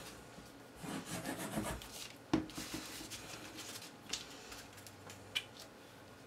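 Cardstock being handled and rubbed as a paper insert is glued and pressed onto a card base: rustling and rubbing, loudest for about a second near the start, with a sharp tap a little after two seconds in and a few softer taps later.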